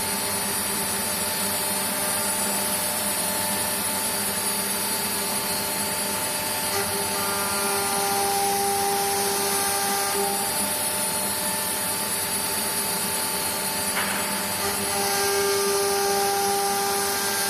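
Four-axis CNC router running: a steady whine from the spindle over a constant mechanical hiss. Extra tones come in about seven seconds in and again near the end, with a brief sharp click about fourteen seconds in.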